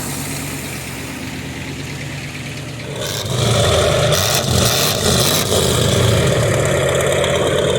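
A 1985 Ford F350's 6.9-litre International V8 diesel, with two newly replaced injectors, idling and then revved up from about three seconds in, running steadily. The owner judges it to sound good.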